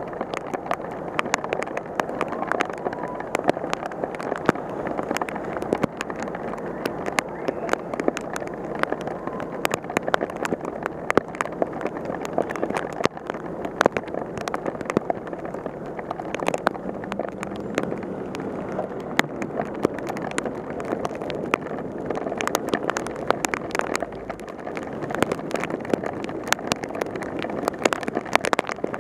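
Heavy rain: raindrops striking the camera's housing as many sharp, irregular ticks over a steady hiss of downpour and traffic on the wet road.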